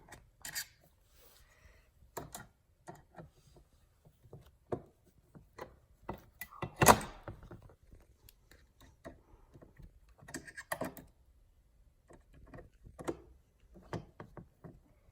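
Scattered small clicks and knocks of an Allen wrench working a bolt on a refrigerator freezer-drawer handle, with one louder knock about seven seconds in.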